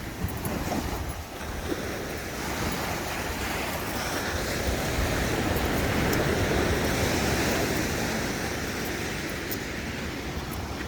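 Pacific Ocean surf washing up the beach, a steady rush that swells about five seconds in and eases toward the end, with wind rumbling on the microphone.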